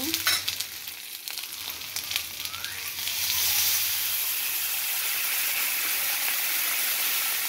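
Wooden spatula scraping and tapping in a nonstick frying pan of fried onions, green chillies and small fish, then, about three seconds in, a louder steady sizzle as a little water hits the hot oil.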